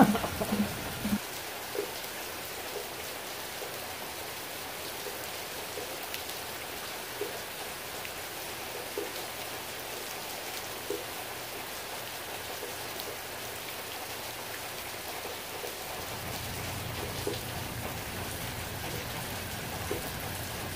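Heavy rain pouring down: a steady, even hiss with a few scattered drop ticks. A low rumble rises under it in the last few seconds.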